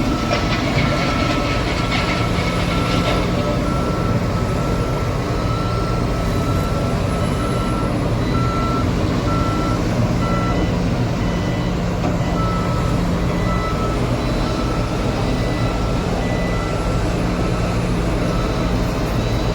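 JCB 3DX backhoe loader's diesel engine running steadily, with its reversing alarm beeping in an even series that pauses for about two seconds midway. A second, higher beep repeats more slowly alongside.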